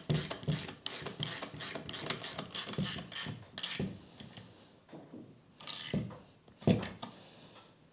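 Ratcheting spanner clicking rapidly, about five clicks a second, while it tightens the nuts on a stainless steel tiller bracket. Near the end come a single metallic clink and a duller knock.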